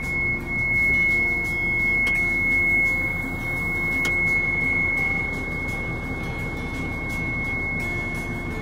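Hino Profia truck's diesel engine running, heard from inside the cab as the truck moves slowly, with a steady high-pitched tone held throughout. Two light clicks come about two and four seconds in.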